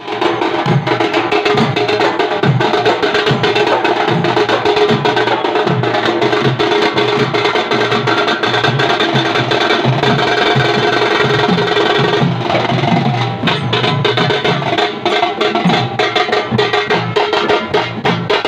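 Dollu kunitha drumming: a troupe beating large dollu barrel drums with sticks in a fast, loud, unbroken rhythm.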